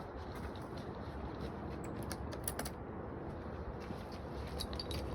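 Scattered light clicks and rattles of hardware being handled, bunched about two seconds in and again near the end, over a steady low hum.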